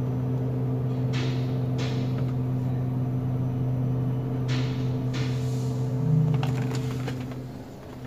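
Steady low hum inside the cabin of a Toyota Rush idling at a stop: the cabin drone the video sets out to show. The hum fades away near the end.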